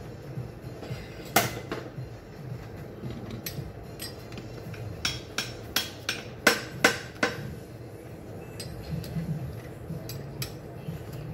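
Metal-on-metal knocks and clinks as a keyless drill chuck is worked in a steel chuck-extractor bracket to remove it: one sharp knock about a second in, then a quick run of about six clinks a little past halfway.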